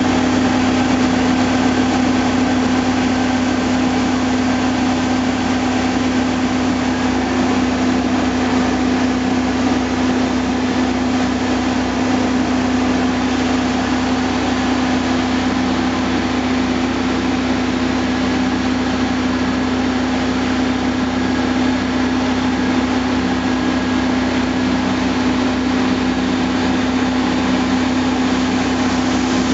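Heavy diesel engines of a dump truck and a Volvo asphalt paver running steadily at constant speed with a strong, even hum while the dump bed is raised to tip its load into the paver.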